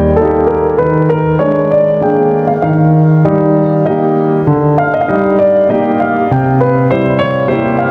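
Background piano music, a slow melody over sustained chords.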